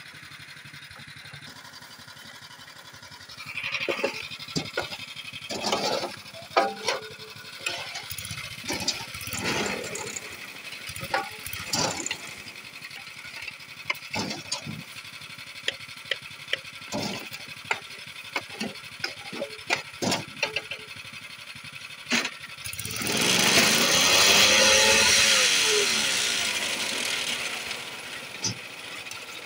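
Shovel scraping and metal knocking as concrete mix is spread into the mould of a concrete block-making machine. About two-thirds of the way through, the machine's small engine and vibrator run loud for about five seconds, rising and then falling in pitch, to compact the blocks.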